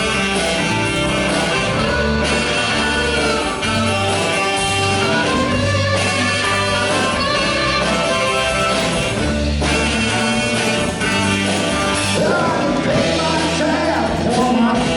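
Live band playing an upbeat country-rock song: bass, drums and guitar, with a melody line carried over them.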